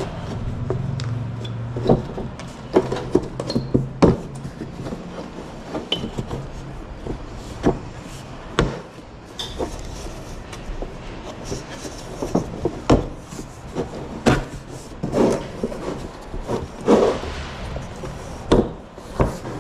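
Scattered knocks, clicks and rubbing from handling a picture frame as a velvet-covered backing board is fitted into it. A low hum fades out about two seconds in.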